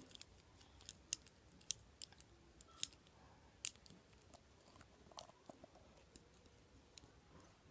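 Lego bricks being handled and snapped together, giving a scattered series of sharp plastic clicks at irregular intervals.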